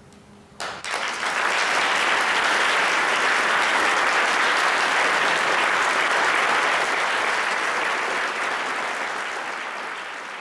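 Audience applause that breaks out suddenly about half a second in, quickly fills out to a full, steady clapping, and starts to taper off near the end.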